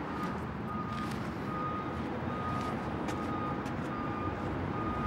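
Repeating electronic beep, one steady tone sounding about once a second, over a steady low rumble.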